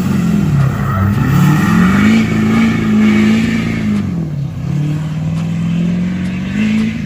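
Pickup's Duramax V8 diesel engine pulling under throttle, its pitch climbing over the first couple of seconds, holding, dropping back about four seconds in, then climbing again near the end.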